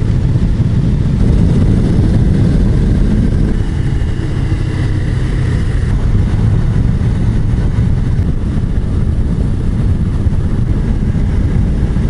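Suzuki GSR250 parallel-twin motorcycle cruising at a steady speed, heard from a handlebar-mounted camera as a steady low rumble of engine and wind.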